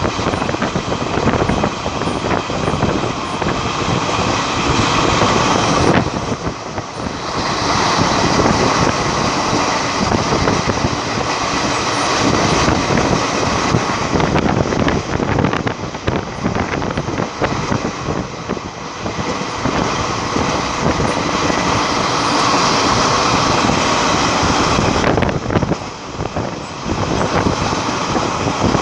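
Moving express train heard from a passenger coach's open doorway: a steady loud run of wheels rolling on the rails with a scatter of clicks, dipping briefly twice.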